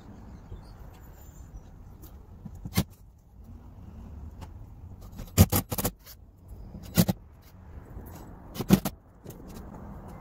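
Sharp clicks and knocks of a round car speaker being pressed and fitted into a Ford Escape's bare front door panel: single knocks near the start and near the middle, a quick run of three about halfway through, and a close pair near the end, over a steady low background rumble.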